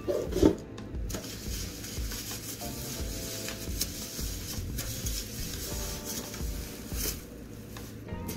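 Plastic parts and packaging of a new humidifier being handled, rubbing with small clicks and knocks, over faint background music.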